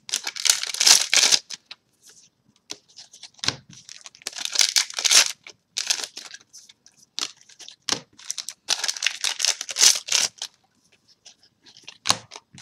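Trading cards and foil booster-pack wrappers rustling and crinkling as they are handled by hand, in several separate bursts of a second or so, with small clicks between them.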